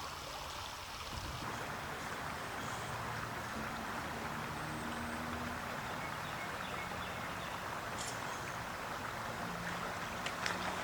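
Small stream water running steadily, with a few sharp clicks near the end.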